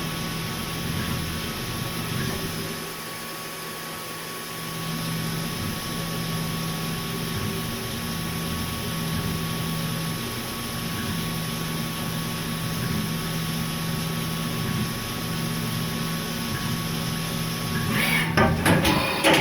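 Haas DM-2 CNC machining center running a high-speed milling program in steel: a steady mechanical hum with a constant high tone and a low tone that cuts in and out every second or two. Near the end, a brief burst of sharp clattering.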